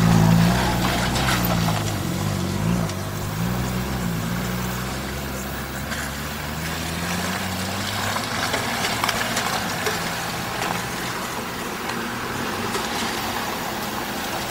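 Off-road SUV engine running at low speed as the vehicle crawls past through rough ground, revving up and down over the first few seconds, loudest at the start. After that the engine noise settles to a weaker, steadier rumble as more SUVs follow.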